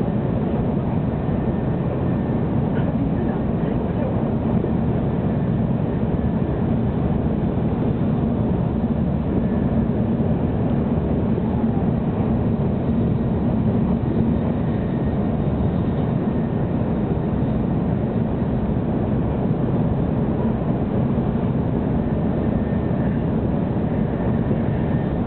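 Steady running noise inside the passenger cabin of a 700-series Shinkansen travelling at speed: a constant low rumble that holds level throughout.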